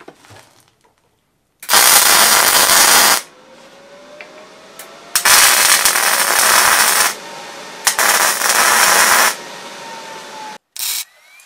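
MIG welding with a Miller Multimatic 220: the arc sizzles in three separate runs of one to two seconds each as steel frame pieces are tacked together, with short blips of arc between them.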